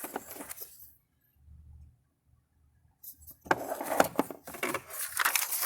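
Plastic oil filter wrench set and its holder being handled: clicks and rattling of plastic, stopping for about two seconds, then starting again busier about three seconds in.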